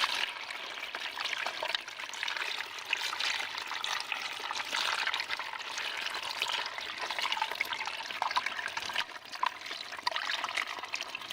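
Water pouring and trickling out of a bamboo fish trap as it is tipped to empty the catch, with many small splashes and ticks throughout.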